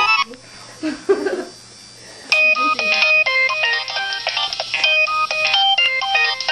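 A mobile phone ringtone: after a lull of about two seconds, a quick electronic melody of short beeping notes starts and plays on.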